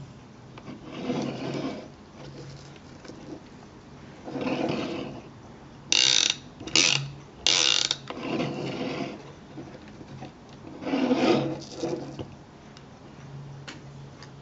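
Homemade hard-drive centrepin reel spun by hand, its clicker rattling against the spool in several bursts of rapid clicking. The loudest are three short sharp bursts close together about six to eight seconds in.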